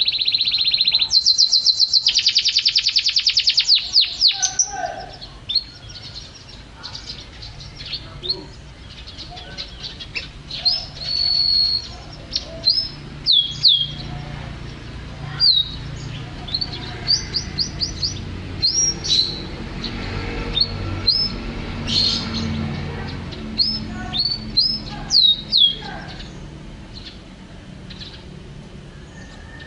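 White-rumped shama singing: a fast, loud trill in the first few seconds, then a long string of short, clear, downward-sweeping whistled notes.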